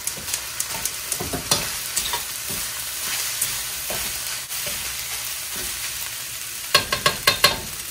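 Egg fried rice with chicken sizzling in a wok over a gas flame, stirred and scraped with a metal ladle. A steady sizzling hiss runs under scattered scrapes, and a quick run of sharp clacks comes near the end.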